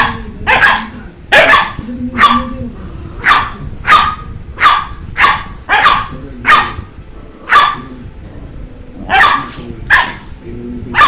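Dog barking in a long, rapid series of sharp barks, about one to two a second, with a short break about two-thirds of the way through.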